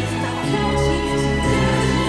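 Show soundtrack music: held instrumental chords, with a deep bass note coming in about half a second in.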